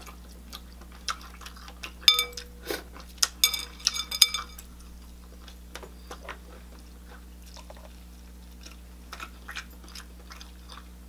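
Close-miked chewing and smacking of boiled seafood, with wet, sticky hand sounds. About two seconds in comes a cluster of sharp clinks with a short ring, then only scattered small clicks.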